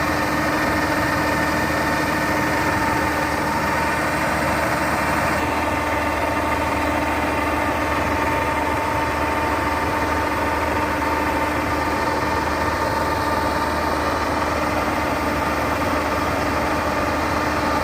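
Rice combine harvester's engine running steadily at a constant speed while the machine unloads paddy, a continuous hum with a steady whine over it.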